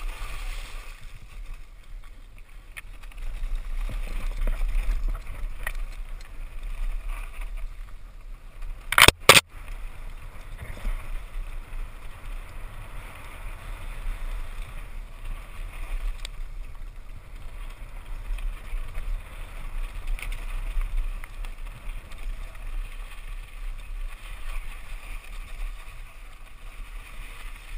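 Mountain bike descending a rocky trail: steady wind rumble on a helmet-mounted camera's microphone, with tyre and frame rattle over the stones. Two sharp knocks close together about nine seconds in.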